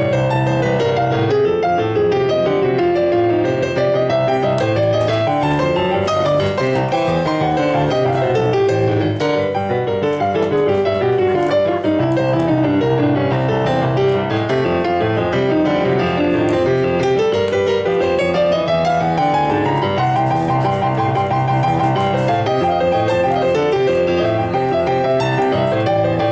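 Background piano music, with runs of notes sweeping down and then back up the keyboard over a steady lower accompaniment.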